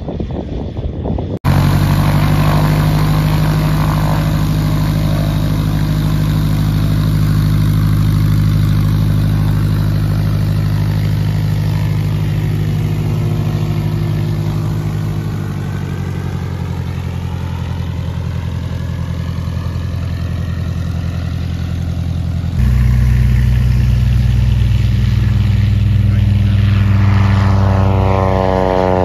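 Light single-engine propeller aircraft running steadily at high power, with abrupt changes a second or so in and again past twenty seconds. Near the end a sweeping, phasing tone as a plane passes during its takeoff run and climb-out.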